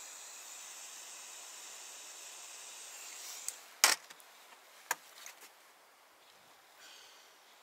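Small handheld gas torch hissing steadily while heating heat-shrink tubing on a wire, then going out about three seconds in. A sharp clack follows as it is set down in a metal toolbox, then a couple of lighter clicks.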